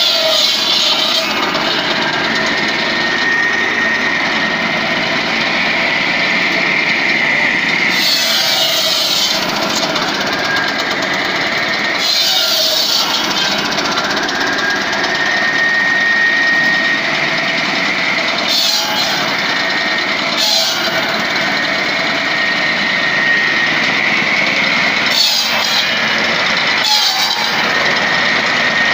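Small petrol engine driving a tilting-table circular saw for firewood, running steadily with the blade whining. Several times a log is pushed into the blade and cut through with a loud rasp. The engine is turning only a little above idle, too slowly to give its full power.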